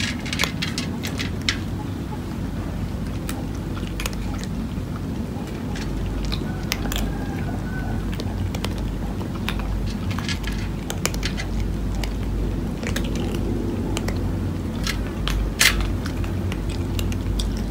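Several cats crunching dry kibble: irregular crisp crunches and clicks, one sharper than the rest near the end, over a steady low rumble.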